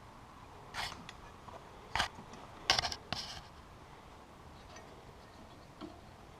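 Metal exhaust parts and tools being handled on a snowmobile: about five sharp clinks and knocks in the first half, the loudest a little under three seconds in.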